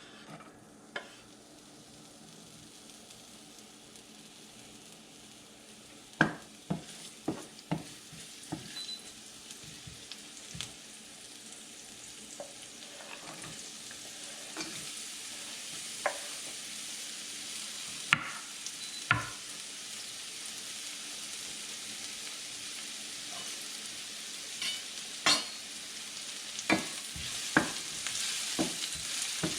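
Food sizzling in hot oil in a pan, the sizzle slowly growing louder, while a spatula stirs it and clacks sharply against the pan a dozen or so times.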